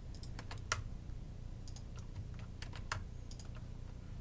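Computer keyboard and mouse clicking: about a dozen short, irregular clicks as keys are pressed and vertices selected, over a faint low steady hum.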